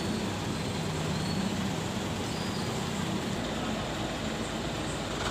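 A vehicle engine running steadily: a low hum under an even wash of street noise.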